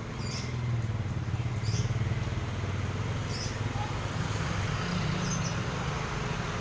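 Brush cutter engine running steadily at low speed, with short high chirps recurring about every second and a half.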